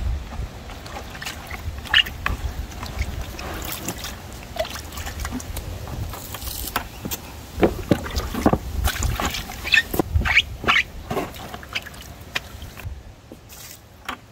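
A sponge scrubbing and sloshing water around inside a plastic bucket, with irregular squelches and scrapes against its sides, then the water is tipped out. This is the rinse that cleans set cornice-cement residue out of the mixing bucket.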